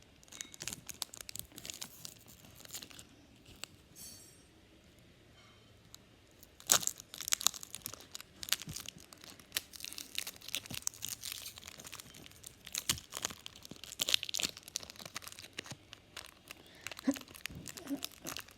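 Pokémon trading-card booster pack's foil wrapper being crinkled and torn open: a long run of sharp crackles and rips, with a quieter lull about four to six seconds in.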